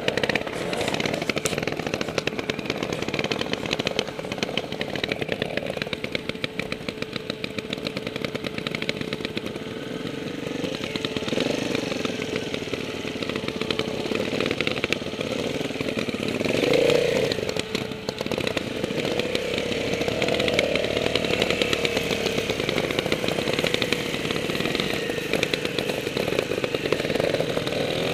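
Trials motorcycle engines running at low, uneven revs as the bikes pick their way down a rocky slope, with a brief louder rev about two-thirds of the way through.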